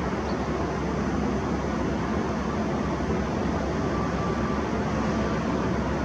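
Steady low rumble of city traffic noise, even throughout with no distinct events.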